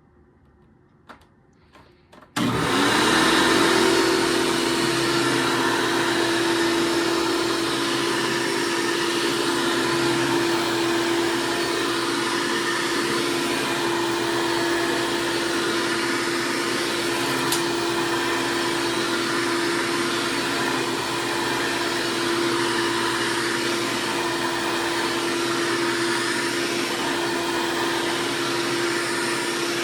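2004 Hoover C1415 vacuum cleaner, its motor started after a couple of faint clicks, spinning up quickly and then running with a steady whine.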